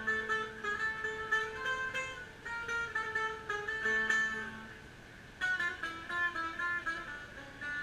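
A plucked string instrument playing a quick melody of single notes. The playing pauses briefly about five seconds in, then picks up again.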